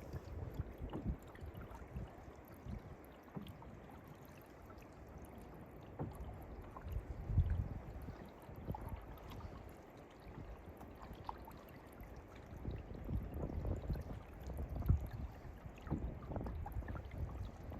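Canoe paddle strokes dipping and pulling through the water, with small splashes and drips and water lapping at the hull. Low rumbles swell and fade a few times.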